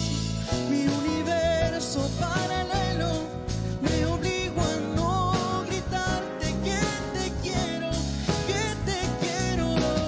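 A man sings a slow romantic ballad in Spanish, holding long, wavering notes, over live acoustic guitar accompaniment.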